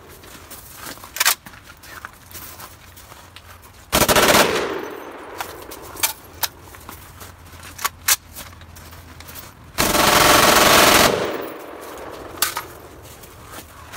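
Short-barrelled AR-pattern rifle firing fully automatic: a short burst about four seconds in and a longer burst of over a second near ten seconds in, with scattered single gunshots between.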